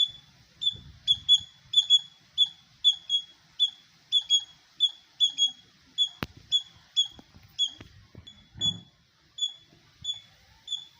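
Squirrel giving a long run of short, high-pitched chirps, about two a second and slightly uneven, stopping just before the end. A single sharp click sounds about six seconds in.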